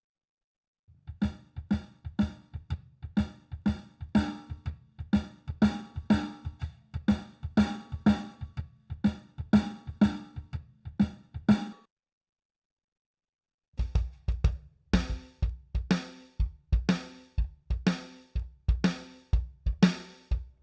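Recorded drum kit tracks played back: kick, snare and cymbals in a steady beat of about two hits a second. The beat stops dead near the middle and, after about two seconds of total silence, starts again with a fuller, deeper kick.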